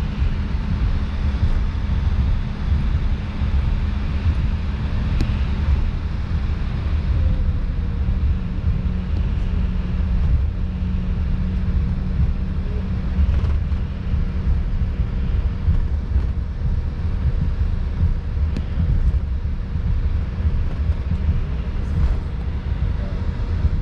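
Airliner cabin noise during taxi after landing: a steady low rumble of the idling jet engines and the wheels rolling on the taxiway, with a faint steady hum underneath.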